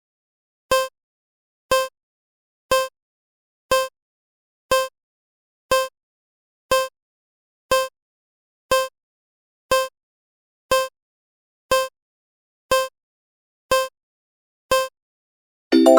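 Short pitched electronic ticks, fifteen in a row about once a second like a metronome, setting the pace for reading each new screen aloud. A piano chord comes in right at the end.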